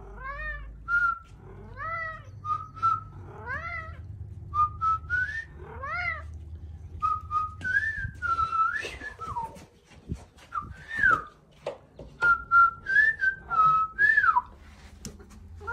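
A person whistles short notes, some held and some sliding, and a domestic tabby cat answers in between with short rising-and-falling meows, trading back and forth many times: the cat is replying to the whistles.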